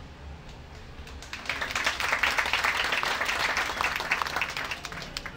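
Crowd applauding: clapping starts about a second in, grows, then dies away near the end.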